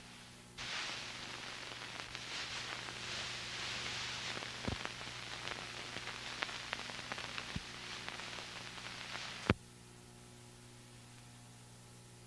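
Static hiss and crackle with scattered clicks over a steady low electrical hum. The hiss starts suddenly about half a second in and stops with a sharp pop about nine and a half seconds in, leaving only the hum.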